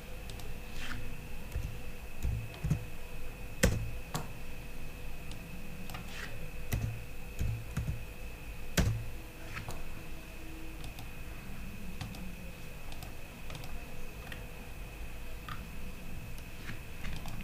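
Computer keyboard keystrokes and mouse clicks, scattered and irregular, as numbers are typed into a table, over a faint steady high-pitched whine.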